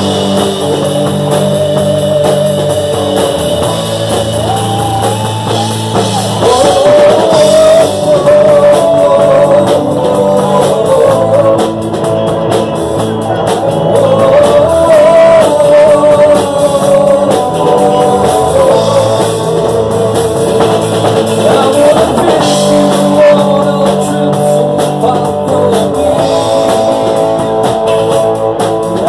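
Live rock band playing loud, with electric guitar and a singer singing into a microphone.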